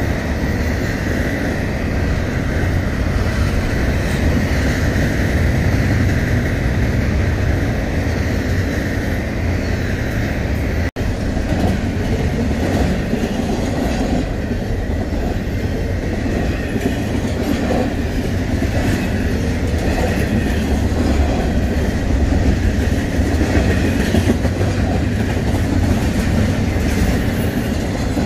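Freight train rolling past on the rails, a steady loud rumble and rattle of the cars. After a sudden break about eleven seconds in, a double-stack intermodal train of container well cars passes close by with the clickety-clack of its wheels over the rail.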